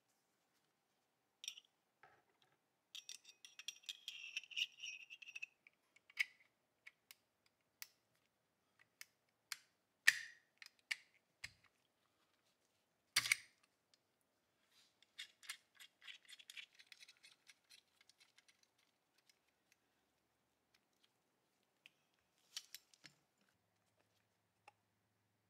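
Small steel gun parts of a Remington .22 pump-action rifle clicking, scraping and rattling as the trigger group, with its coil spring, is handled and fitted to the receiver. Faint scattered clicks with two stretches of quick rasping clicks, and two sharper metallic clicks about ten and thirteen seconds in.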